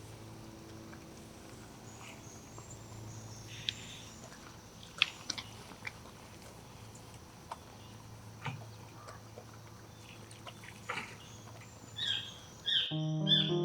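Scattered light clicks and taps over a low steady hum, a few of them sharper, with music coming in abruptly near the end.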